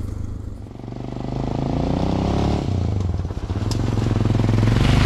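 Honda Dominator NX650's single-cylinder four-stroke engine running under throttle as the motorcycle rides toward the microphone, growing louder as it comes closer.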